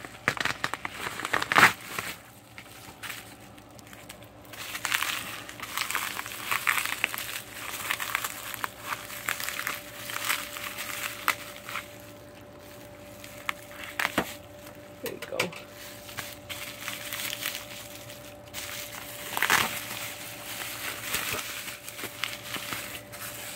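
Bubble wrap and a padded paper mailer crinkling and rustling as they are handled and pulled apart, in irregular bursts of scratchy noise with short crackles. The loudest handling comes about a second and a half in and again near the twenty-second mark.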